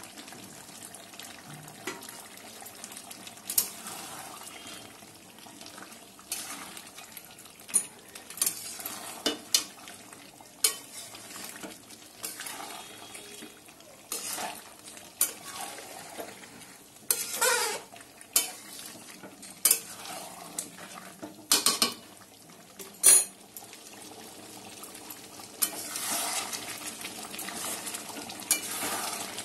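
Spatula stirring and scraping chicken curry and potatoes in a metal karahi, with irregular clanks against the pan over a steady sizzle of frying. The meat is being fried down in its masala (kosha) until the oil separates.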